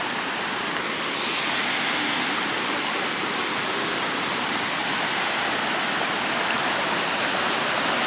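Shallow, clear stream rushing over rock slabs and small cascades, a steady, even rush of running water.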